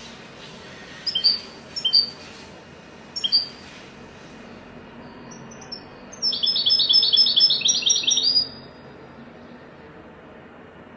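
European goldfinch singing: three short chirps in the first few seconds, then a fast run of bright repeated notes lasting about two seconds.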